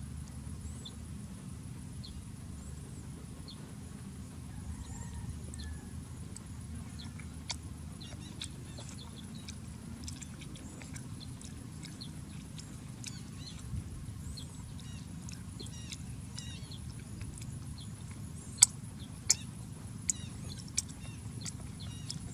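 Snail shells clicking as they are handled and picked at: a few sharp clicks, then four in quick succession near the end, about two-thirds of a second apart. Behind them is a steady low rumble and faint, scattered bird chirps.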